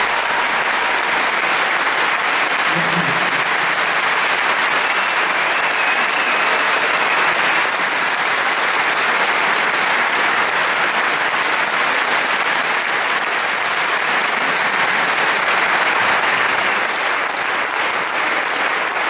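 Concert-hall audience applauding after a song, a dense, steady clapping that eases slightly near the end.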